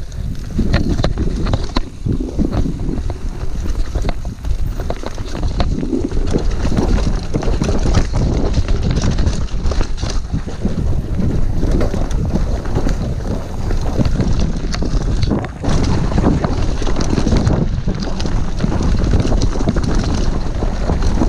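Mountain bike descending a dirt trail at speed: wind rushing over the camera microphone, tyres rolling over dirt and roots, and the bike rattling and knocking over bumps.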